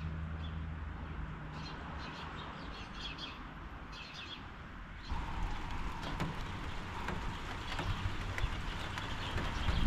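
Small birds chirping over a low steady hum. About five seconds in, the sound switches abruptly to rain falling, with many individual drops ticking close by as the thunderstorm's shower sets in.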